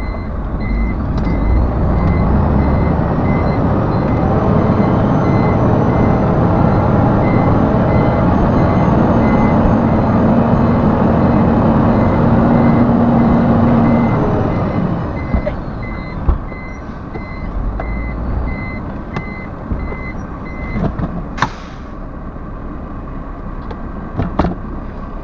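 Low-loader truck manoeuvring: a steady repeating reversing-alarm beep over the diesel engine running under load. The engine eases off about two-thirds of the way through, the beeping stops a little later, and a short sharp hiss of air follows.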